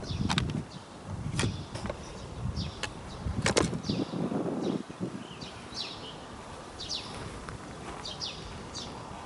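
Outdoor ambience of small birds giving short, high, downward-sweeping chirps again and again, over low wind rumble on the microphone with a few sharp knocks, the strongest about three and a half seconds in.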